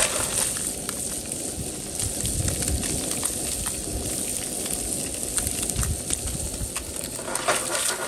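Crappie fillets frying in hot butter in a skillet: a steady sizzle with scattered crackles and pops as the seasoned side blackens and crisps, over the low roar of a propane burner.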